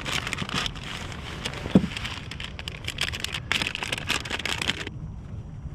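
Hands rummaging through a plastic tackle tray, with lures and their packaging clicking, rattling and crinkling, and one louder knock about two seconds in. Shortly before the end the handling stops and only a low, steady background noise remains.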